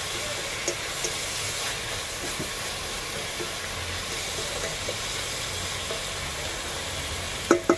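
Fresh mushrooms sizzling in hot oil in a pan with sautéed onion, garlic, ginger and tomato: a steady frying hiss with a low rumble underneath. A few faint ticks, then two sharp knocks near the end.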